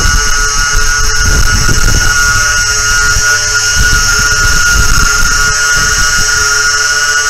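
The twin electric motors and propellers of an RC Aero Commander model plane run at a steady part throttle, a loud level whine, on a battery close to the speed controller's low-voltage cutoff. Wind rumbles on the microphone underneath.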